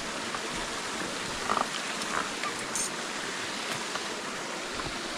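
River water rushing steadily below a bouncy footbridge, with a few faint knocks and a brief squeak about one and a half seconds in.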